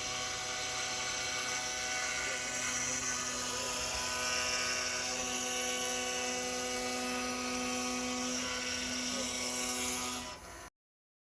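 6040 CNC router spindle running steadily with a high whine while cutting wood, its motors adding steady tones. It cuts off suddenly near the end.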